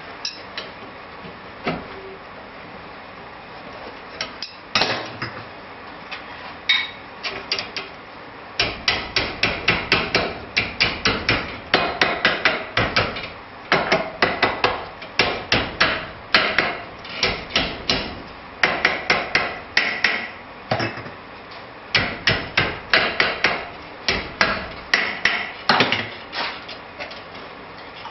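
Hand hammer striking a hot steel bar, wrapping it around a nail header clamped in a steel vise: a few scattered blows, then about eight seconds in, quick runs of sharp, ringing blows with short pauses between the runs.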